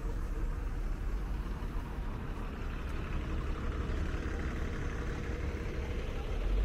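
Street traffic: a steady low rumble of vehicle engines with road noise.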